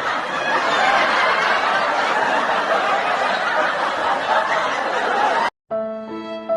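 Crowd laughter, like a sitcom laugh track, that cuts off suddenly about five and a half seconds in. A sad violin melody begins right after it, near the end.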